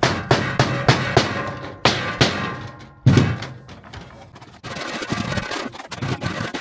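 Rubber mallet striking a galvanized sheet-metal panel again and again to flatten it, in quick irregular blows, the hardest about three seconds in.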